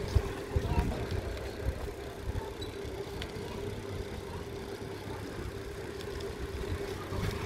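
Mountain bike rolling along a paved road, heard from a phone on the handlebars: a steady hum over a low rumble from the road and the air, with a few light clicks about half a second in.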